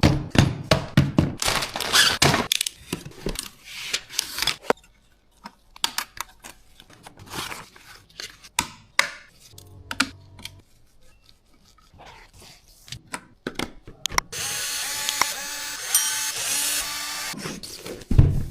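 Hand assembly of PC parts: a run of clicks, knocks and handling rattles as components and screws are fitted. About fourteen seconds in comes a steady whir lasting about three seconds, like a small power driver, before the clicks resume.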